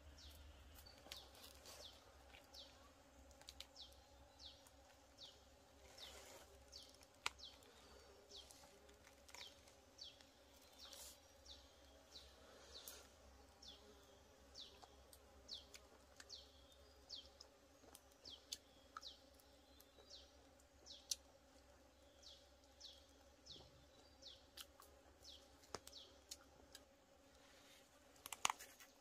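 Faint forest ambience: short falling chirps repeat about one or two a second, with a few sharp clicks; the loudest click comes near the end.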